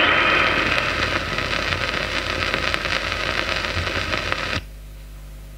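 Crackle and hiss from an old 78 rpm record playing its last groove, full of small clicks and slowly fading. About four and a half seconds in the stylus is lifted and the sound cuts off abruptly, leaving only a low hum from the playback system.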